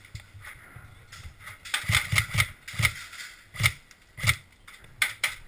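Footsteps of a person moving on foot, a run of irregular thuds and knocks with quick steps about two seconds in, then slower steps.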